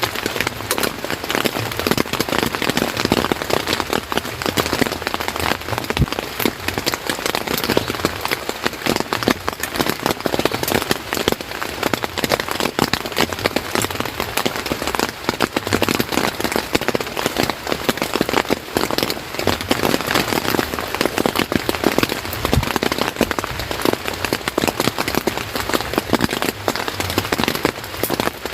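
Steady rain pattering on a surface, a dense, even patter of many fine drops.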